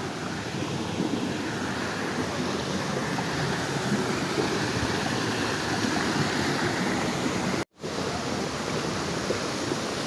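Waterfall, a steady rush of falling water. The sound drops out for an instant about three-quarters of the way through, then resumes unchanged.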